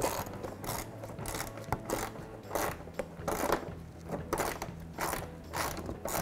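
Hand ratchet clicking in repeated short strokes, about two a second, as it drives a fastener behind the front wheel-arch trim.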